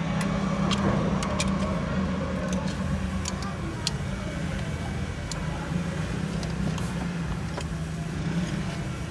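A steady low mechanical hum, like an engine or machine running, with scattered light clicks and taps, as of hand tools on metal.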